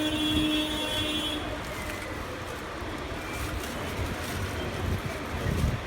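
Steady background noise throughout, with a pitched tone held for about the first second and a half and then cut off.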